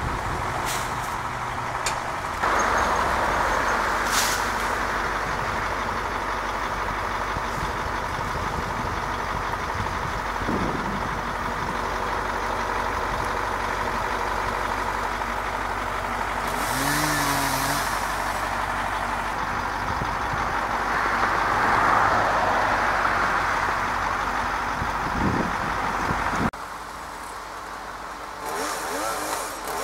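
Truck engine of an aerial lift running steadily while it powers the boom, with a constant low hum. About 26 s in it drops abruptly to a quieter background.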